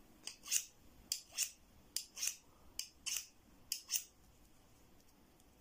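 Steel kitchen knife's spine scraped along a scissor blade's cutting edge, one-way strokes that sharpen the scissors. About five strokes at an even pace, each a pair of short high metallic scrapes, stopping about four seconds in.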